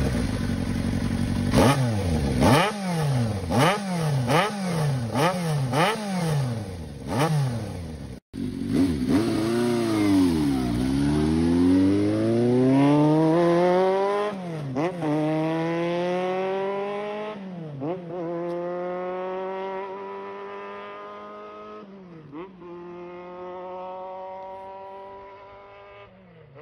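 Kawasaki Zephyr inline-four through an aftermarket slip-on muffler, blipped to rev about once a second for several seconds at standstill. After a cut, a motorcycle pulls away and accelerates through four upshifts, fading as it goes.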